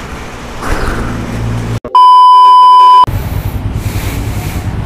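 A loud, steady electronic beep about a second long, cutting in and off abruptly a little before the middle; before and after it, motorcycle riding noise with a low engine hum and wind.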